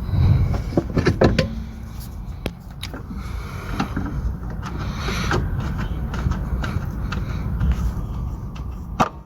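Scattered clicks and knocks of hand tools working on diesel fuel-line fittings, over a steady low rumble.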